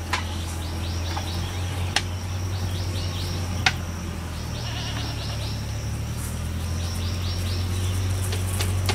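Outdoor field ambience: a steady low hum, with rapid runs of short, high, falling chirps from small animals repeating throughout, and a few sharp clicks.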